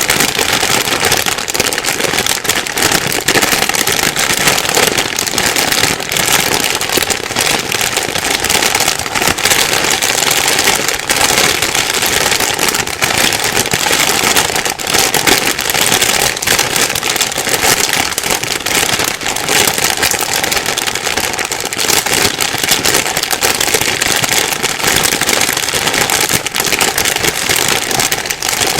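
Plastic bag being rustled and crumpled continuously: a dense, unbroken crinkling.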